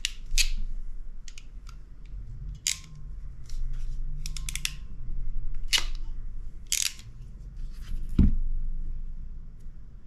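Hand crimp tool clicking as it is squeezed shut on a micro-BNC crimp sleeve in its middle die cavity: a string of sharp separate clicks, with a quick cluster about halfway, and one heavier knock about two seconds before the end.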